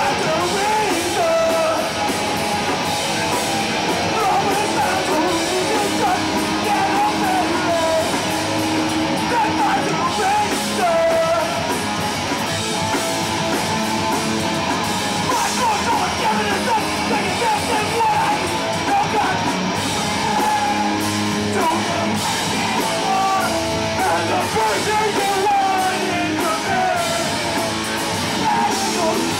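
Hardcore punk band playing live: distorted electric guitar, bass and drums at full tilt with yelled vocals, heard from within the crowd.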